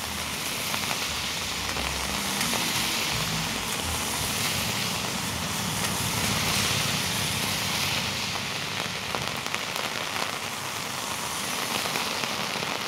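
Heavy rain falling on an umbrella held overhead: a dense, steady hiss dotted with sharp drop ticks, swelling slightly louder through the middle.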